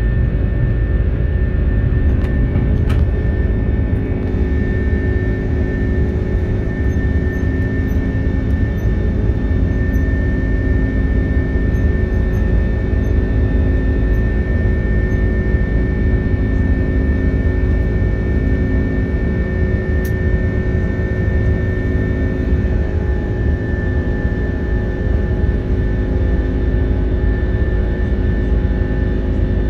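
Jet airliner's engines heard inside the passenger cabin during the climb after takeoff: a steady, loud rumble with a constant high whine above it.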